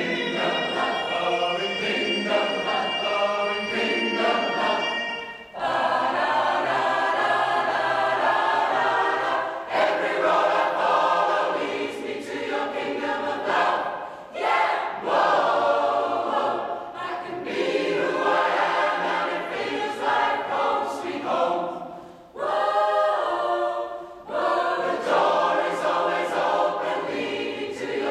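Mixed choir of men and women singing together in phrases, with short breaks between the phrases.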